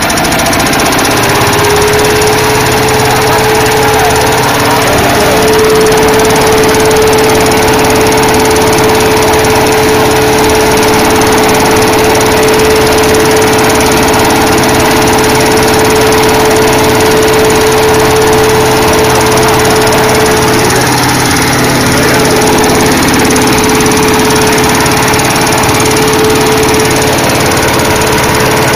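Small Honda petrol engine driving a road dust air blower, picking up speed in the first second and then running steadily at full throttle, with one steady tone above the engine noise.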